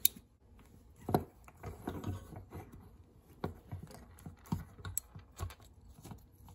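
Irregular light clicks and taps of an Allen key and small metal parts being handled while a small bolt is unscrewed on a Suntour Cyclone Mark II rear derailleur.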